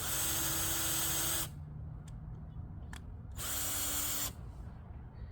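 Electric drill running in two bursts, the first about a second and a half long and the second under a second, as it bores holes through a 3/4-inch wooden base.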